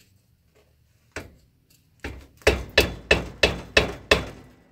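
A small hammer tapping a screwdriver set against the lip of a two-stroke engine's case cover: one tap about a second in, then a quick series of about seven sharp metal taps, roughly three a second. The taps are gently driving the stuck cover off the engine case over the automatic clutch.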